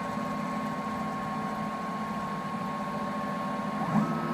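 Automatic bead-making wood lathe running, its motors giving a steady hum and whine. Near the end the whine steps up in pitch with a short knock, holds for under a second, then drops back.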